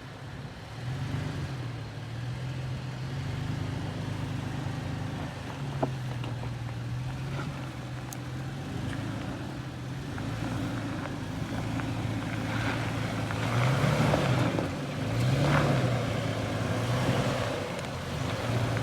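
Off-road 4x4's engine running at low speed, rising and falling in short revs again and again as the vehicle crawls over the trail, with more noise mixed in near the end.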